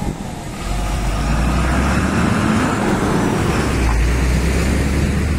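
Mercedes-Benz rigid curtainside lorry's diesel engine running as the lorry pulls away and drives slowly past at close range, getting louder about half a second in, with tyre noise on the tarmac.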